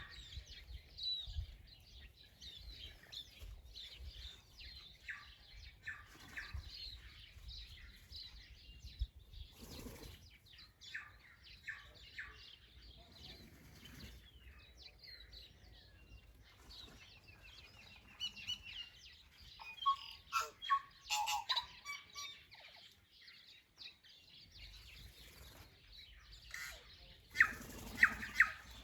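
Wild birds chirping and singing, several overlapping calls and trills, with a louder run of clear notes about two-thirds of the way through and another burst of chirps near the end.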